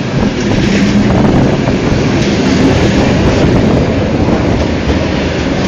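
ED4M electric commuter train pulling into the platform to stop, its cars running past with a steady loud rumble of wheels on rail.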